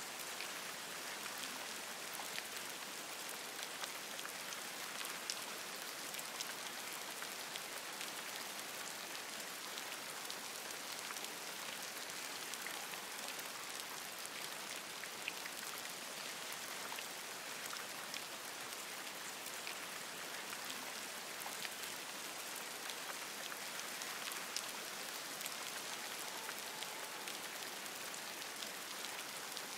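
Steady rain falling on forest leaves: an even hiss thick with many small drop ticks, with no let-up.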